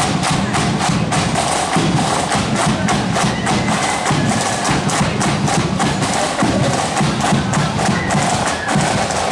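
Marching band playing, with snare and bass drums beating a steady rhythm under the tune.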